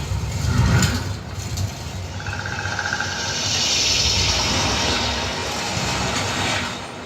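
Dolby demo sound effects played through a Yamaha receiver's 3.1 speaker set with an 8-inch subwoofer: a deep bass rumble in the first second, then a hissing whoosh that swells through the middle and fades near the end.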